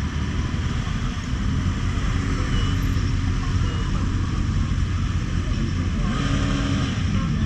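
Motorcycle engines running as a column of motorcycles rides slowly past, a steady low rumble with engine pitch rising and falling as bikes go by.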